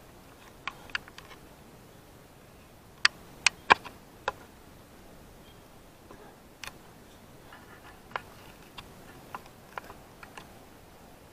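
Quiet woods with scattered short, sharp clicks and ticks. The loudest come in a quick cluster about three to four seconds in, with more spread out later.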